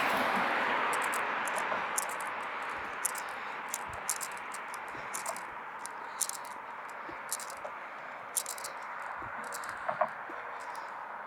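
Traffic noise from a passing vehicle slowly fading away, with regular light scuffing footsteps on pavement, about two a second.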